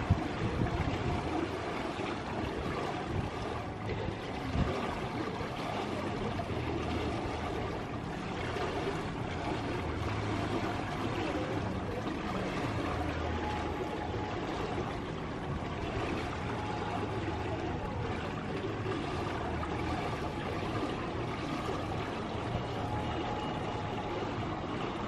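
Steady pool-side ambience: a continuous wash of running water with a low rumble underneath.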